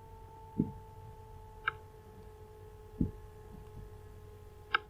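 A few scattered computer-mouse clicks and soft desk knocks, four in all, over a steady electrical hum.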